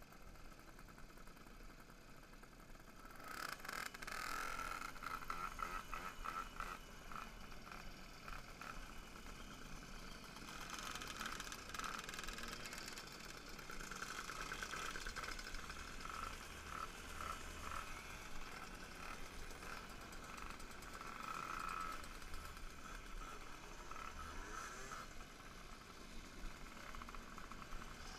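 Several two-stroke moped engines running and revving close by, a rapid pulsing buzz that gets louder about three seconds in.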